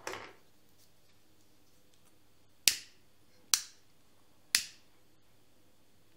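A soft rustle at the start, then three sharp clicks about a second apart, each with a short ringing tail in a small tiled room.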